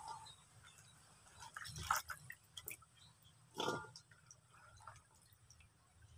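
Hands moving taro stalks in a plastic basin of water, with short splashes and drips as stalks are lifted out. The two louder splashes come about two and three and a half seconds in.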